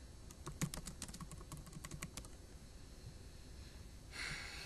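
Typing on a computer keyboard: a quick run of keystroke clicks for about two seconds, then a short breathy hiss near the end.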